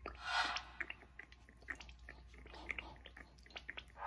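Quiet kitchen handling sounds: a short rustle of a paper towel, then scattered light clicks and taps as an olive oil bottle with a pour spout is handled over a glass baking dish.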